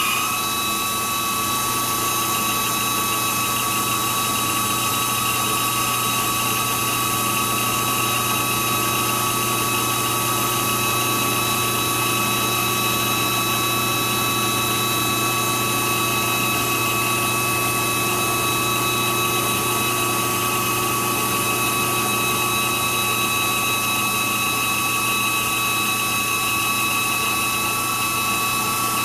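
Drill press running with its chuck jaws being ground true by a high-speed grinder to remove runout: a steady high-pitched whine over motor hum and grinding hiss.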